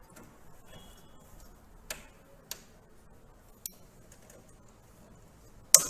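Plastic clicks of a cleaning brush being pushed into its holder inside a Xerox B1025 copier: a few light ticks, then one sharp, louder click near the end. That tick sound shows the brush is fixed properly.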